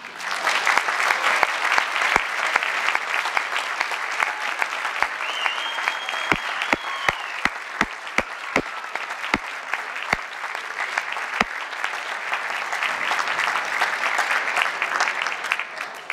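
Audience applauding a concert band: dense, steady clapping from a hall full of people, with a run of sharper single claps close by between about six and eleven seconds in.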